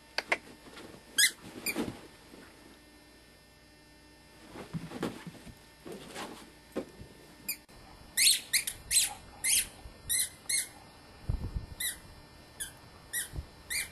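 A dog's squeaky toy squeaking as a puppy chews and mouths it: two squeaks about a second in, then a quick irregular run of short high squeaks in the second half. A dull low thump comes a little past the middle.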